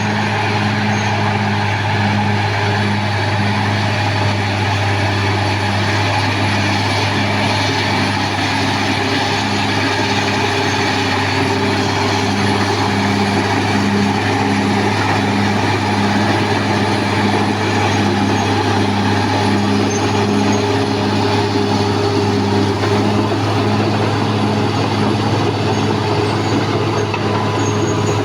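Caterpillar D6R XL bulldozer's diesel engine running steadily at work, a constant low drone with a hum that pulses about once a second.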